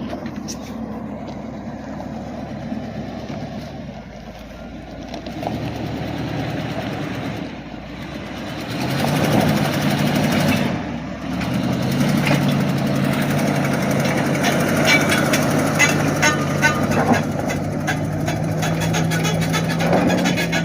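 Chevy 454 big-block V8 of a Class A motorhome pulling under load on a rough climb, getting louder about nine seconds in and holding a steady note. Knocks and rattles from the rig lurching over rough ground run through the second half.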